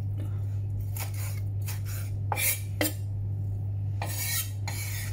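Kitchen knife cutting ginger on a wooden chopping board: a handful of separate chops and scrapes of the blade across the board, over a steady low hum.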